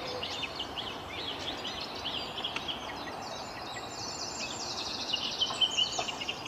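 Spring dawn chorus: several songbirds singing at once, including a song thrush, with quick repeated phrases and a rapid run of notes about two-thirds of the way through, over a steady background hiss.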